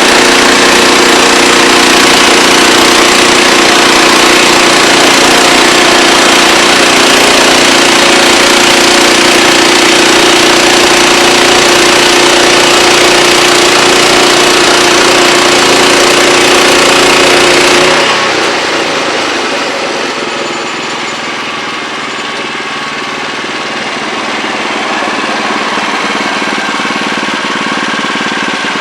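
Wood-Mizer LX25 portable band sawmill running loud and steady, its engine and band blade working. About two-thirds of the way through the sound drops suddenly to a lower, duller level and keeps running.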